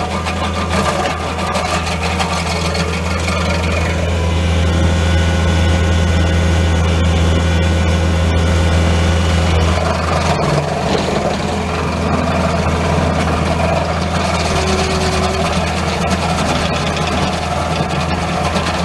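Bobcat T630 track loader's diesel engine running at a steady speed, with a brief dip in its note about ten seconds in.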